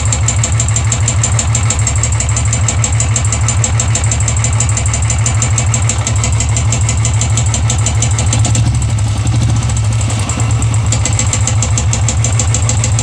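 Royal Enfield Classic 350 single-cylinder engine idling steadily with a rapid, regular "tik tik tik" ticking from the top end. The mechanic suspects the decompressor, having also weighed the hydraulic tappets and the timing.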